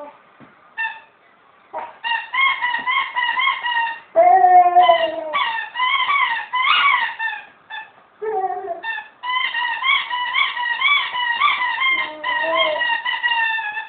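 Rubber squeaky toy being chewed by a dog, squeaking over and over in quick runs of about three or four squeaks a second, with short pauses between runs and a few lower, longer squeaks.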